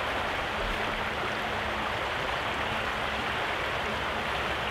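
Steady rush of river water flowing through a resistance board weir.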